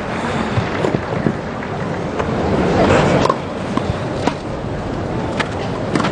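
Tennis ball struck back and forth with rackets during a rally, sharp hits about once a second, over a steady crowd and stadium background that swells briefly about halfway through.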